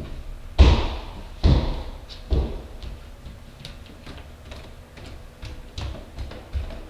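Heavy stomping thuds in a house: three loud thumps about a second apart, then lighter knocks, taps and a couple of softer thumps.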